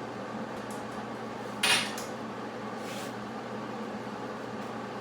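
A single sharp metallic clank of metal pieces knocking together about a third of the way in, with a fainter clink near the middle, over a steady machine hum.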